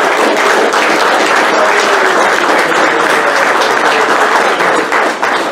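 Audience applauding steadily and loudly, with a few faint voices underneath.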